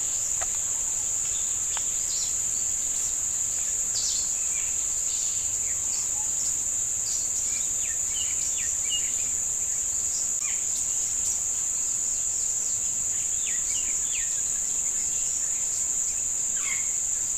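Steady high-pitched insect drone, with occasional short bird chirps scattered through it.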